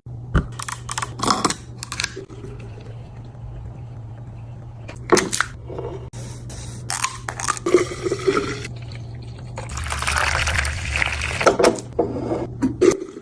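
Drinks being handled during a fridge restock: a series of knocks and clinks, with a noisy stretch of pouring liquid about ten seconds in, over a steady low hum.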